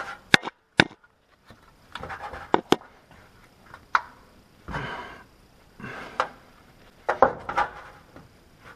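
Hand work on the gear-shift cable ends and locking clip at the gearbox: a series of sharp clicks and knocks of parts being handled and pressed into place, with short bursts of rustling between them.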